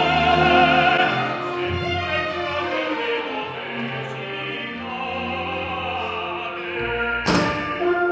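An operatic tenor holds a high note with vibrato, which ends about a second in, and the opera orchestra plays on. A single sharp knock sounds near the end.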